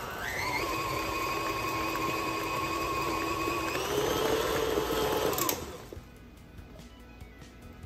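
KitchenAid stand mixer running with its flat beater mashing cooked potatoes in the steel bowl. The motor whine rises as the speed is turned up just after the start, steps up again about four seconds in, then cuts off and winds down about five and a half seconds in.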